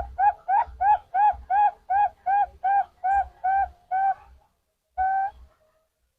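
Zebra dove (perkutut) cooing: a quick run of short, even coos, about three a second, then a pause and one longer drawn-out coo about five seconds in.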